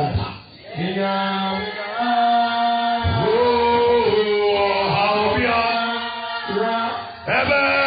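Voices singing a slow, chant-like song in long held notes, breaking briefly about half a second in and again near the end.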